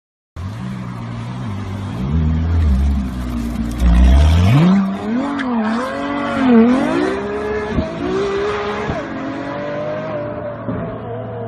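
Sports car engine running low at first, then revving hard as the car accelerates past, its pitch climbing, dropping at gear changes and climbing again. It then settles into a steady drone as the car pulls away down the road.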